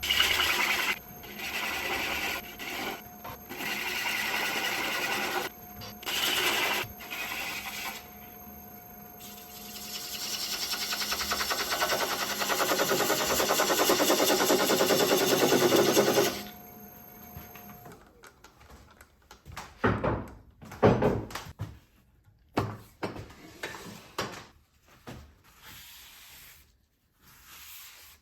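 Wood lathe running while a turning tool cuts spinning rainbow plywood in short, broken passes, then one longer, louder pass. About eighteen seconds in the lathe's steady hum stops, and only scattered knocks follow.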